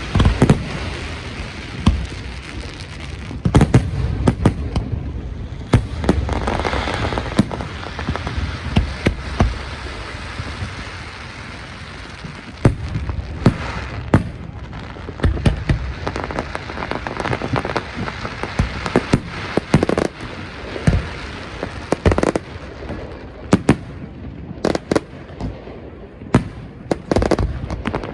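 Fireworks display: a continuous run of bangs and crackling bursts, some loud and sharp, over a steady hiss of crackle.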